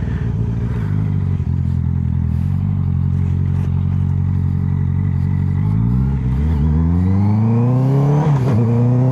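Honda CBR650F inline-four motorcycle engine running at low revs at a steady note through a slow U-turn, then accelerating away with rising pitch, a brief dip at a gear change about eight and a half seconds in, and pulling again.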